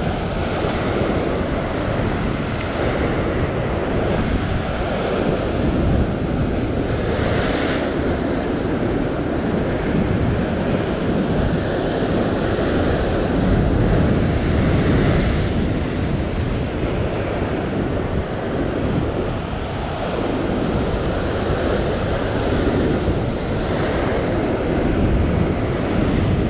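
Heavy ocean swell breaking and washing over coastal rock ledges, a continuous rush of surf with several louder breaks, and wind buffeting the microphone.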